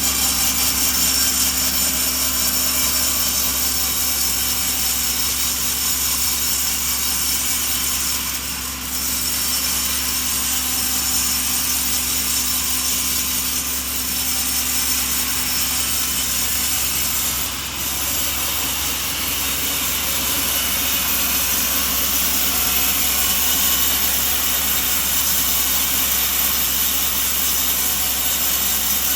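Sawmill saw cutting through a coconut log, a steady loud hiss-like cutting noise, with brief dips about 9 and 18 seconds in.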